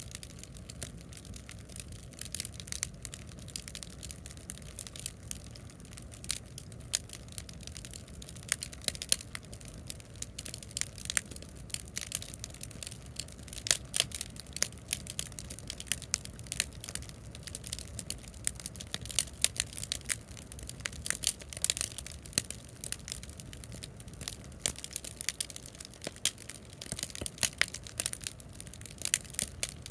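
Bonfire of stacked scrap-wood offcuts crackling, with frequent irregular sharp pops over a low steady rumble.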